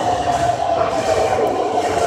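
Toei 10-300 series subway train running on the rails: a continuous rumble with a steady whine over it.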